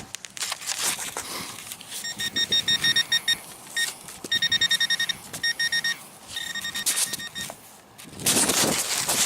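Metal detector beeping in three runs of rapid pulsed tones, the sign of a metal target close by in the hole. Near the end comes a louder burst of scraping and rustling from digging in the soil.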